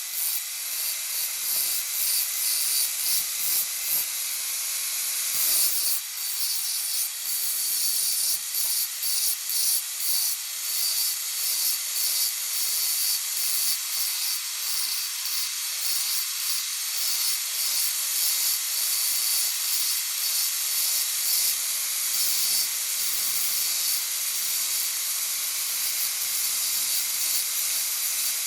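A steel knife blank being worked by abrasion, a high hiss of abrasive on metal. It comes in quick repeated strokes, about two a second, for the first ten seconds or so, then runs steadier.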